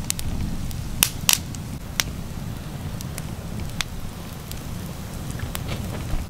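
Open wood campfire crackling, with a few sharp pops, the loudest about a second in, over a steady low rumble.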